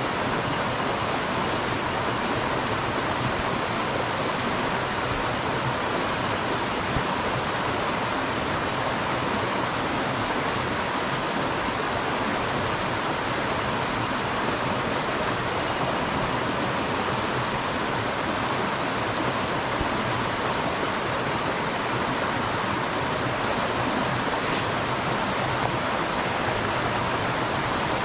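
Water rushing steadily down a waterfall cascade, an even, unbroken noise.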